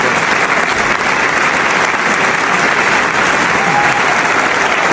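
Large crowd clapping and cheering, a dense steady applause that does not let up.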